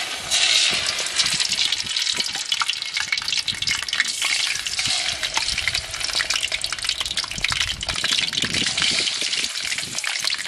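Chicken wings frying in a pan of hot oil: a steady, dense sizzle with constant crackling.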